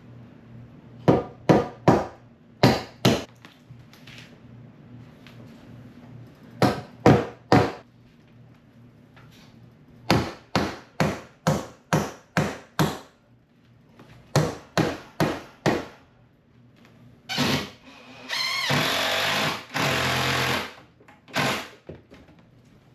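Hammer blows on a wooden wall stud, in quick runs of four to seven strikes, about three a second. Late on, a power tool such as a drill runs steadily for about two seconds.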